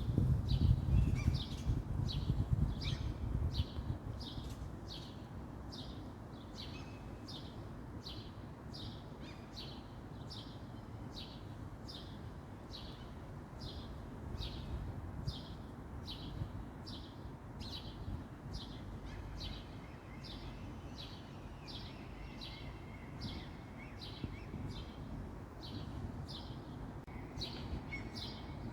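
A bird calling over and over, short high chirps repeating evenly at about two a second, over a low rumble that is louder in the first few seconds.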